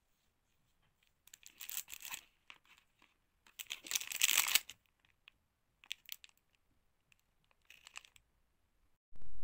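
Packaging being torn and crinkled by hand in four separate bursts, the longest and loudest about four seconds in. Near the end a low rumble starts abruptly.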